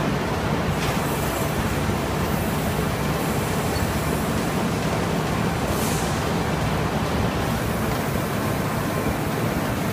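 DLG FMQF 1480 fully automatic high-speed flute laminator running steadily, feeding printed sheets, with the general din of a busy exhibition hall around it. A brief hiss comes about six seconds in.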